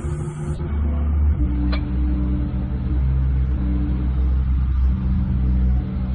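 Caterpillar 330CL hydraulic excavator's diesel engine running, its pitch and load shifting a few times as the machine is worked.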